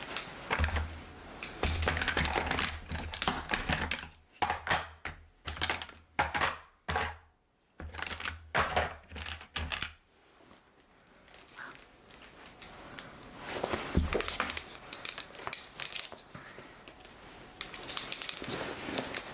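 Close-up crinkling and rustling of objects being handled, then a run of sharp clicks and taps with short gaps, then softer rustling with one louder burst of rustling about two-thirds of the way through.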